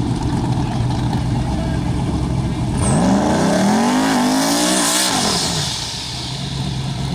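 Drag-race car engine idling, then about three seconds in a 1990s Ford Mustang's engine revs up sharply and holds at high revs through a burnout, its rear tyres spinning with a hissing rush. The revs drop away near five seconds and the idling goes on.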